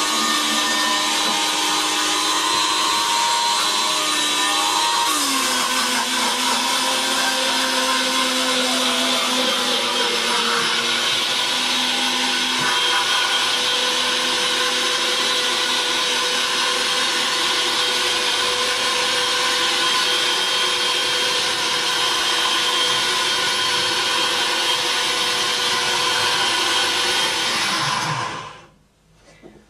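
Bosch VitaPower MMB 6174S high-speed blender, a 1200 W motor, running steadily at high speed as it purees soaked cashews with water into cashew milk. Its pitch drops slightly about five seconds in, and the motor stops near the end.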